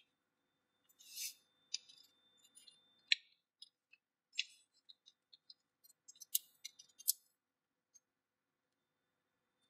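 Sheet of origami paper crinkling and rustling under the hands as it is folded and creased: a dozen or so short, crisp crackles and scrapes, the longest about a second in.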